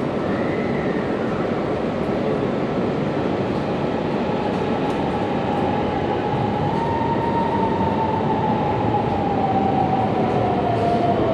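Cát Linh–Hà Đông line metro train running between stations, heard from inside the car. A steady rumble of rolling noise carries an electric motor whine that rises slightly and then falls toward the end.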